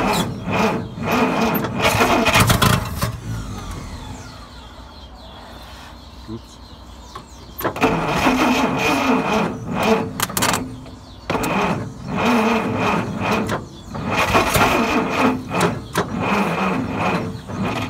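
Dodge D300 truck engine being cranked over by its starter motor in several bursts: a short one at the start, then longer ones from about eight seconds in, with short breaks between them. It is trying to start after standing for many years, fed petrol poured into the carburettor because its fuel pump is not working.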